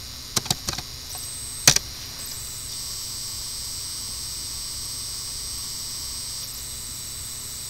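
Computer keyboard keystrokes: a quick run of four or five key clicks in the first second, then a single louder keypress about 1.7 s in, typing a short terminal command and pressing Enter. After that only a steady hiss remains.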